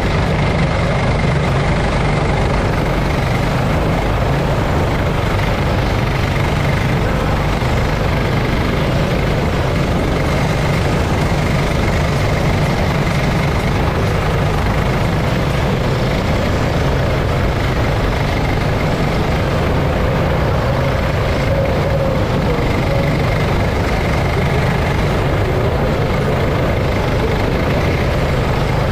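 Go-kart's small engine running steadily under racing throttle, heard from on board the kart.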